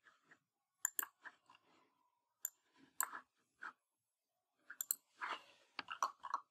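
A few sharp computer mouse clicks, faint, with other short soft noises between them.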